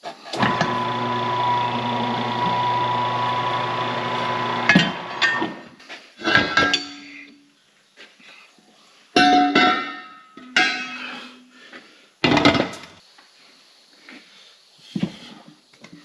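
Tire changer's turntable motor running steadily for about four and a half seconds while a truck tire is worked off its steel rim, then a string of clanks and ringing metal knocks from the tire bar and the steel wheel.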